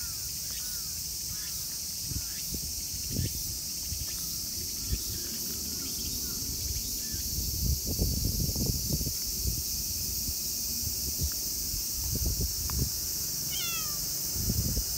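Steady high-pitched drone of summer insects, with low thumps and rustles close to the microphone and a cat's short falling meow near the end.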